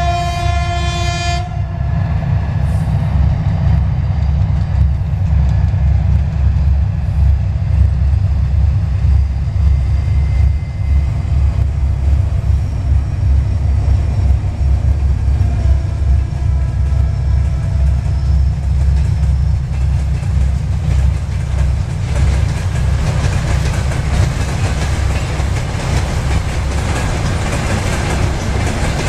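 A 3TE10U diesel locomotive's horn sounds and cuts off about a second and a half in. The locomotive's 10D100 two-stroke diesel engines then drone low and loud as it passes, giving way after about 22 seconds to the rumble and clatter of loaded tank wagons rolling by.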